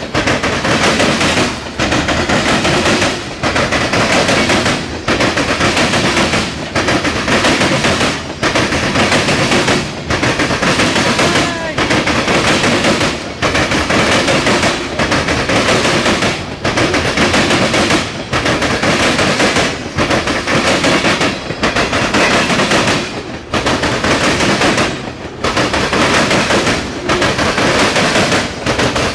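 Long mixed freight train rolling past close by: a loud, continuous clatter of steel wheels over the rail, dipping briefly and regularly about every second and a half to two seconds as each car goes by.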